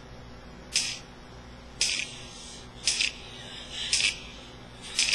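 A pop song playing faintly, with little heard but its sharp backbeat snare-and-clap hits, evenly spaced about once a second.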